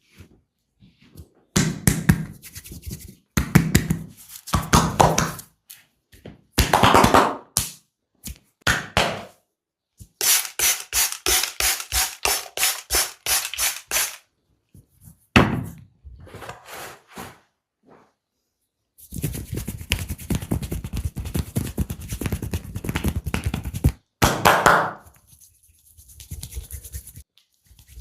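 Percussive massage strikes on the body, dull thuds: scattered blows, then an even run of about five strikes a second, and a longer, faster flurry in the second half.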